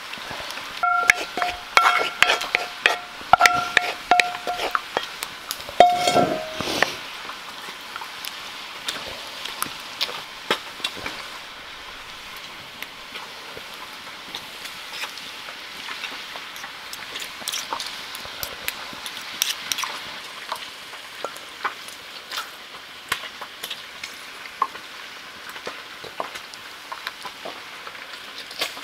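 Wooden spoon scraping and tapping meat sauce out of a cast-iron skillet into a ceramic baking dish, a run of clicks and scrapes with a few short squeaks over the first several seconds. After that, quieter light clicks and rustles as grated cheese is sprinkled by hand over the lasagna.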